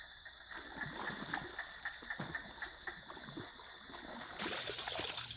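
Hooked striped snakehead thrashing at the water's surface as it is reeled toward the bank: a run of irregular splashes.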